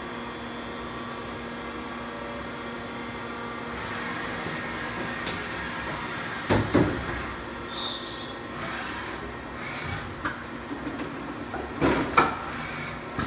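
Mazak VTC-16B vertical machining center running with a steady hum. About four seconds in, a broader whir joins it as the traveling column moves the spindle head along the X axis. A few sharp knocks come around the middle and near the end.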